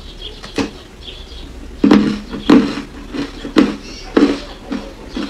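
Ice coated in matcha powder being bitten and chewed close to the microphone. There is one sharp crack from the bite about half a second in, then a run of loud, sharp crunches about every half second as the ice is chewed.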